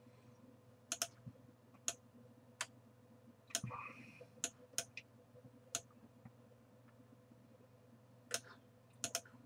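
Faint single clicks of a computer mouse, about ten of them, spaced irregularly.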